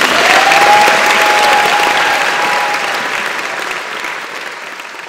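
Audience applauding, swelling in the first second and then slowly fading, with one long held high whistle-like tone above it for the first few seconds.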